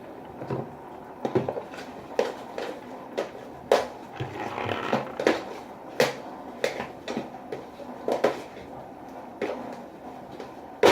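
Irregular knocks and clatter of hard household objects being handled and put down, a dozen or more separate hits, one of them loud enough that someone asks whether something broke.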